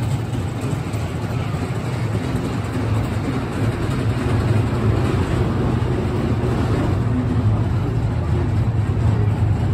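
Cavazza Diego roller coaster train rolling along its steel track, a steady low rumble that grows slowly louder.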